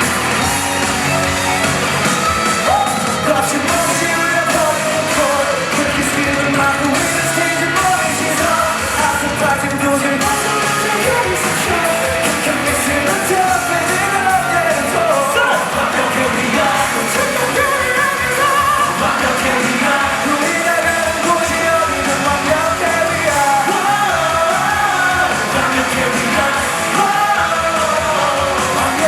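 Rock band playing live, with sung lead vocals and some shouted lines over electric guitars, bass and drums.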